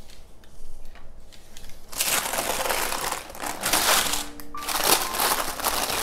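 Sheet of baking (parchment) paper crinkling and rustling as it is handled, starting about two seconds in, while the rolled dough on it is turned over into a tart tin.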